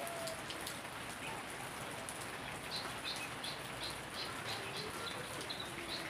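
Steady rain falling on garden foliage and wet ground. Over the second half a bird chirps repeatedly, a quick run of short high notes at about three a second.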